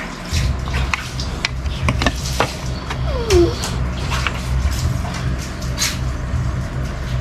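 Plastic play-dough toy being handled: a run of light clicks and taps over a steady low rumble, with one short falling squeak in the middle.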